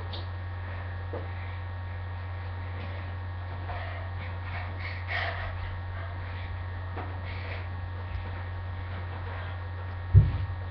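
A steady low electrical hum, with a single low thump near the end.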